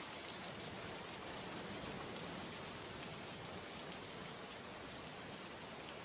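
Steady rain-like hiss of an ambient weather sound effect, even and unchanging throughout.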